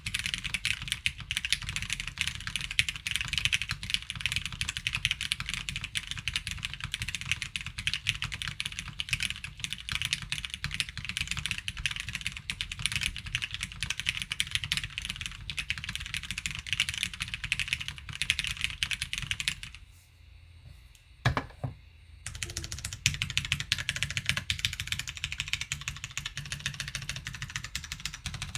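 Fast, continuous typing on a Qwertice R2 custom mechanical keyboard with lubed, filmed Hyperglide MX Brown tactile switches, a polypropylene plate and Ghost Judges Sakura JP keycaps, giving a higher-pitched, plasticky clack. A little past two-thirds of the way through, the typing stops for about two seconds, broken by a couple of single keystrokes, then starts again.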